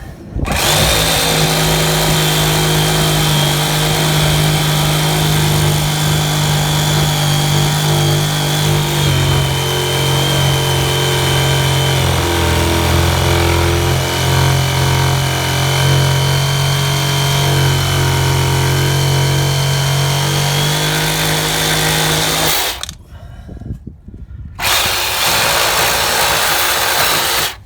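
Handheld bladed power tool running continuously as it cuts wood from the bottom edge of a wooden garden gate, its pitch shifting as the cut loads it. It stops near the end and starts again after a pause of about two seconds.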